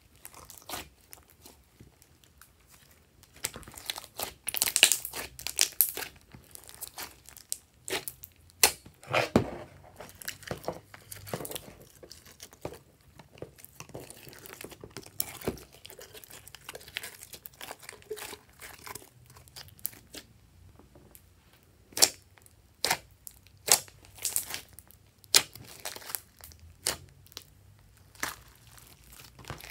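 Hands squishing, squeezing and stretching glossy slime, making irregular sticky clicks and crackles that bunch up into louder runs.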